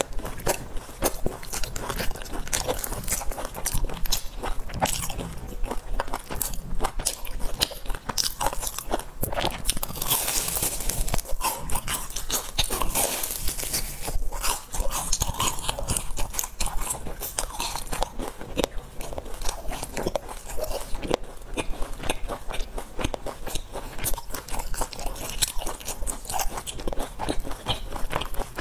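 Close-miked biting and chewing of crisp deep-fried sesame balls, the crust crunching in many quick, sharp cracks.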